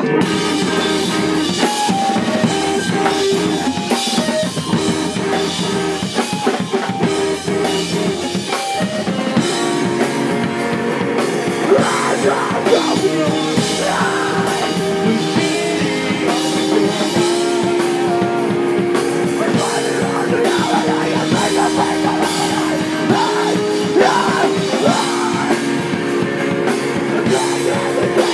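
Live rock band playing a song at full volume, with electric guitars and a drum kit, and singing at times.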